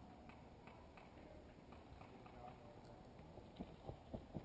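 Faint scattered ticks, then a few footsteps crunching and scuffing through dry fallen leaves near the end as the player moves.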